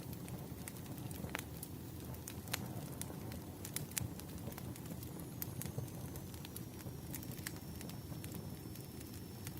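Burning firewood crackling: a steady low rumble of flames with irregular sharp pops and snaps. A faint thin high whistle comes in about halfway through and holds.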